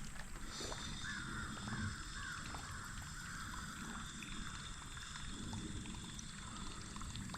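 A bird calls three or four short times about a second in, over the steady low rush of creek water.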